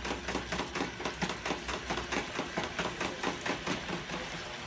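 A utensil whisked quickly round a plastic measuring cup, mixing a flour-and-liquid gravy, clicking against the side about five times a second.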